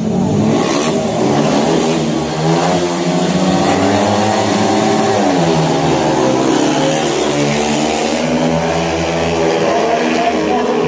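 Speedway motorcycles' 500 cc single-cylinder methanol engines revving hard, their pitch rising and falling with the throttle as the riders leave the start and race around the track.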